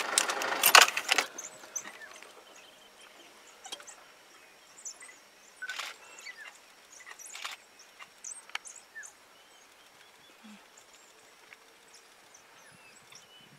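A brief loud rush of noise in the first second, then faint, scattered short high chirps and squeaks of animals calling, with a couple of soft clicks.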